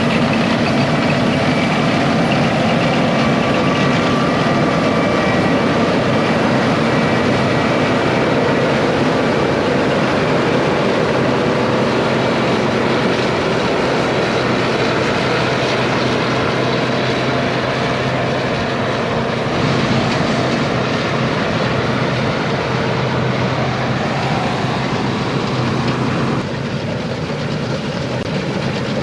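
International 1460 Axial Flow combine running steadily while harvesting wheat, a dense mechanical din with faint steady whines. It drops a little in level near the end.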